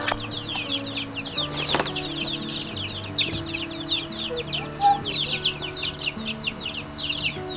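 A crowd of baby chicken chicks peeping without pause, many quick, high, falling cheeps overlapping, with one sharp knock a little under two seconds in.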